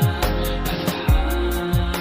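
Instrumental background music: a steady deep drum beat under sustained chords, with no singing.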